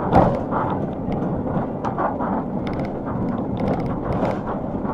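Motorhome driving on the road, heard inside the cab: a steady rumble of engine and road noise with frequent small clicks and rattles from the van's fittings.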